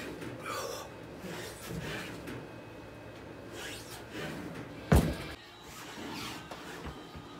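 Loaded barbell of a T-bar row clanks once against the floor about five seconds in, the plates touching down at the bottom of a rep. Softer rubbing and scraping of the bar and handle run between reps.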